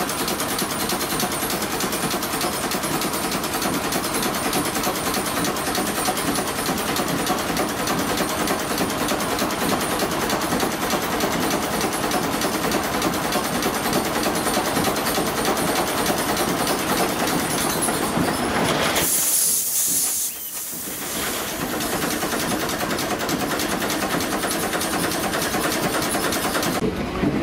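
1929 Gardner 3J5 two-stroke reversible marine engine running, a steady fast mechanical clatter with hiss, briefly broken about two-thirds of the way through.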